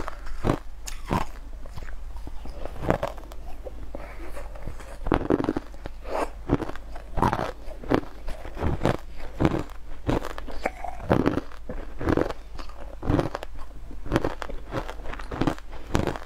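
Mouthfuls of crushed ice being bitten and chewed, with sharp, irregular crunches about one to two a second.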